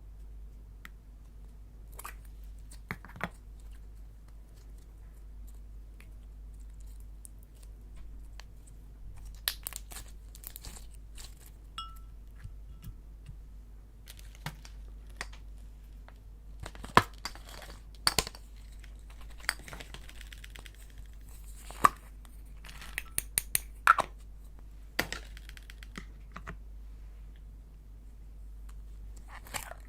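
Slime being squeezed and stretched by hand as clay and glitter are worked in: scattered sticky clicks and crackles, sparse at first and coming thicker in the second half, over a steady low hum.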